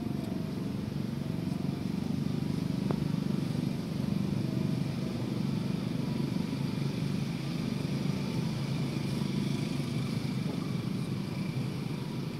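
A steady low engine rumble, as of a motor vehicle running nearby, with no break or change in pitch.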